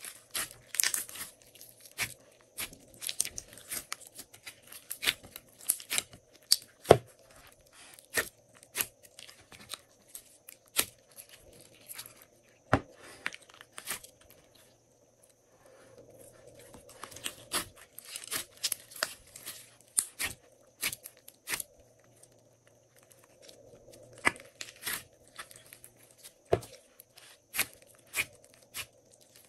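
Glossy slime being squeezed, pressed and kneaded by hand in a glass bowl: irregular sharp clicks and pops, with two short pauses.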